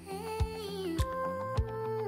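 Background music with a steady beat, about one beat every 0.6 seconds, under a soft sustained melody.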